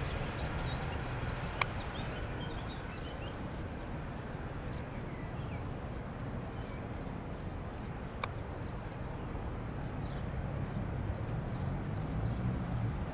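Airbus A320neo's Pratt & Whitney PW1100G geared turbofan engines at takeoff power: a steady low rumble as the jet rolls, lifts off and climbs away. Small birds chirp over it, and two sharp clicks sound, near the start and about two-thirds through.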